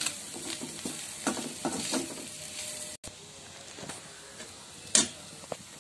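A perforated steel ladle stirring and scraping a dry-fried chicken and onion filling around a metal pan, in irregular strokes over a light sizzle, with one sharp metal clink near the end.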